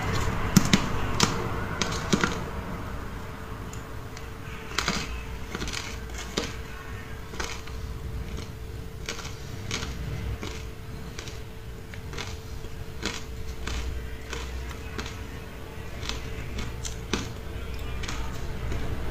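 Close-miked crunching and chewing of frozen powdery matcha ice: a run of sharp, irregular crunches, loudest and closest together in the first couple of seconds, then scattered crunches as she chews.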